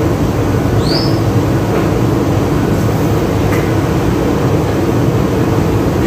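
A steady loud low rumble throughout, with one short high chirp that rises and then falls about a second in, from an African grey parrot.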